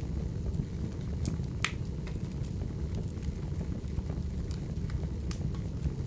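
Fireplace fire burning: a low steady rumble of the flames with scattered sharp crackles and pops, the loudest pop a little over a second and a half in.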